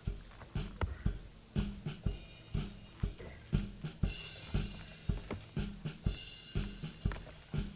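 Background music with a steady drum beat, about two beats a second, with kick, snare and cymbals.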